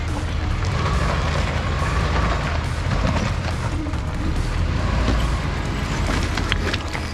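Suzuki Sidekick crawling slowly over loose rocks, its engine running under a deep, steady rumble, with a few sharp clicks and knocks of rock near the end.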